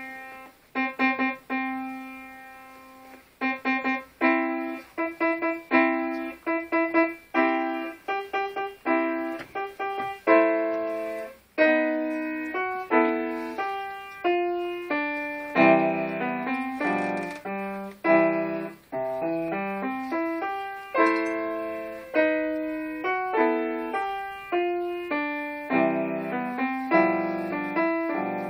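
Grand piano played solo: a steady piece of separate notes and chords, with one note left ringing and dying away a couple of seconds in before the playing picks up again, and lower bass notes joining about halfway through.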